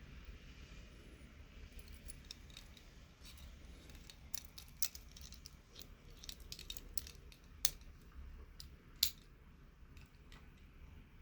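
Irregular small metallic clicks and clinks from the Orient Mako II wristwatch being handled, with a few sharper knocks among them.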